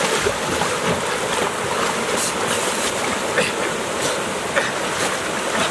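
Water splashing as a person lunges and swims through a stream pool, a steady rush of churned water with a few sharper splashes.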